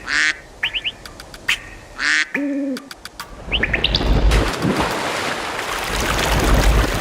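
Birds chirping in short, quick calls, with one lower call about two and a half seconds in. A steady rushing noise joins from about halfway.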